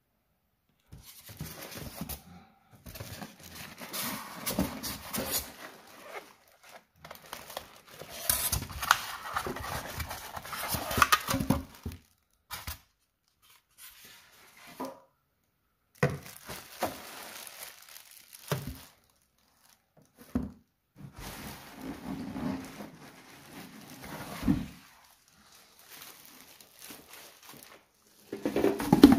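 Clear plastic wrapping crinkling and rustling in irregular bursts with short pauses as the bread maker is unpacked from its cardboard box and polystyrene inserts, with a few short knocks.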